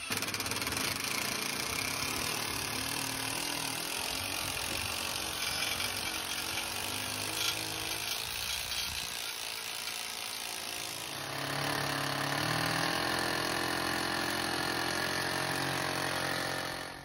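Cordless rotary hammer drilling into a brick wall, running steadily with a rattling hammer action. The sound shifts in pitch and grows a little louder about eleven seconds in, then stops abruptly near the end.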